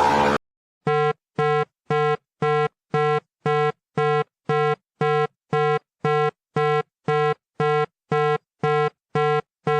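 Electronic alarm beeping in a steady rhythm, about two buzzy beeps a second, starting just under a second in. Before it, a short burst of harsh static-like noise cuts off abruptly.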